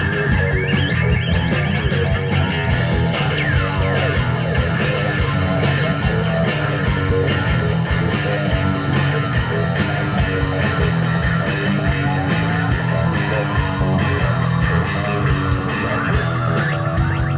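Live rock band playing an instrumental passage, with electric guitars over bass and a drum kit and no singing.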